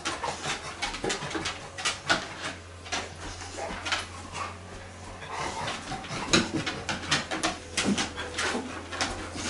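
Chocolate Labrador moving under hands laid on her coat: scattered short rustles and clicks, over a faint low steady hum.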